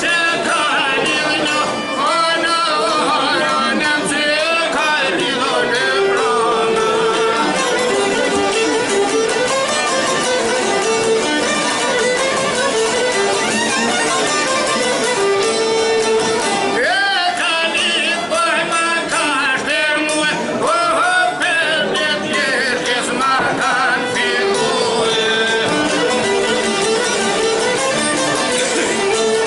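Live Albanian folk music: a fiddle and a long-necked two-string lute (çifteli) play while a man sings along.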